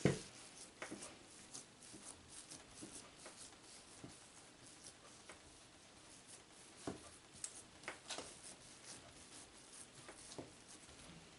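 Faint, sparse soft taps and rubbing of hands pressing and spreading risen bread dough on a floured mat, with a few slightly sharper light ticks in the second half.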